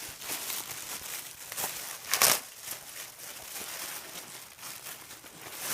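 Plastic packaging crinkling and rustling as a bag is handled and unwrapped, with the loudest rustle about two seconds in.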